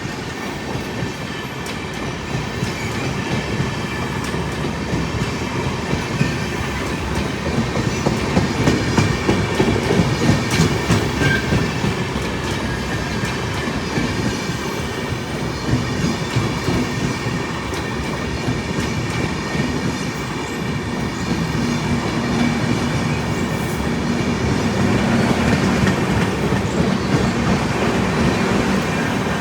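Indian Railways train running at speed, its wheels clattering over the rail joints in a continuous, rapid clickety-clack. A faint steady high whine sits over it, and a low hum joins in for the last several seconds.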